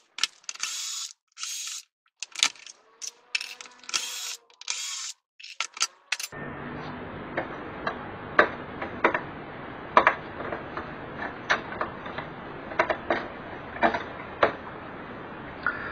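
Short whirring bursts of a cordless drill-driver taking out screws, broken by dead gaps. About six seconds in it gives way to scattered sharp clicks and taps as circuit boards and ribbon cables are handled on the TV's sheet-metal back.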